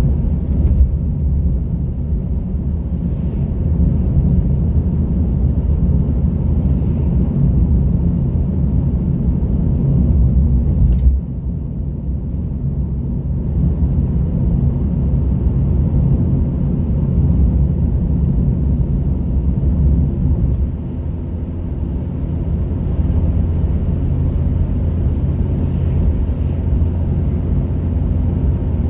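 Moving car's engine and tyre noise: a steady low rumble while driving. About 11 seconds in a brief click comes as the rumble drops somewhat, and it dips again around 20 seconds.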